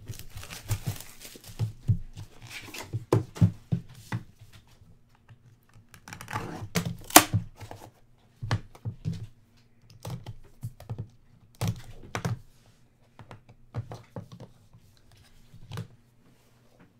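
Plastic shrink-wrap being torn off a cardboard trading-card box and crinkled, then the box opened and hard plastic card cases handled. There are scattered clicks and knocks and a louder rustle about seven seconds in.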